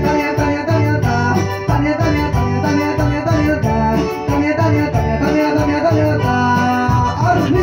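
Live Latin dance music: a man singing into a microphone over an amplified acoustic guitar and keyboard, with a steady beat.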